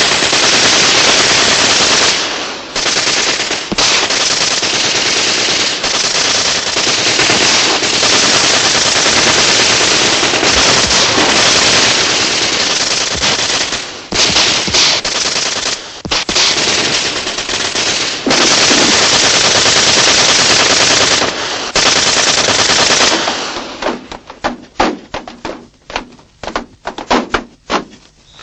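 Sustained automatic gunfire in continuous bursts for over twenty seconds, with a few short breaks. It then thins out to scattered single shots near the end.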